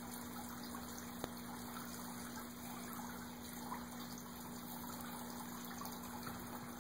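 Steady outdoor background noise with a faint low hum running under it, and a soft click about a second in and another near the middle.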